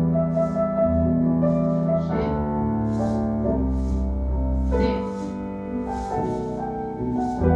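Piano music playing slow, sustained chords, with a new chord struck about every second and a half: ballet class accompaniment.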